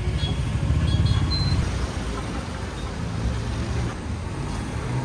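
Road traffic: a vehicle engine running close by over the general noise of a street, a little louder about a second in, then steady.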